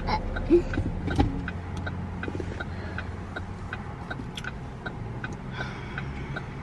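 Car cabin hum from the engine and road, with a turn-signal indicator clicking steadily, a little over two clicks a second.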